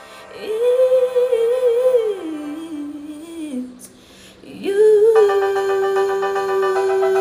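A woman singing long held notes with vibrato, stepping down in pitch about two seconds in. After a brief drop around four seconds she holds a new long note, over a backing of rapidly repeated chords.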